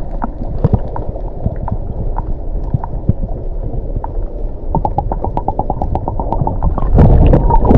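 Muffled underwater sound picked up by a camera under the sea: a steady low rumble of moving water with runs of fast, regular ticks and scattered clicks. About seven seconds in it gets louder with a rush of water.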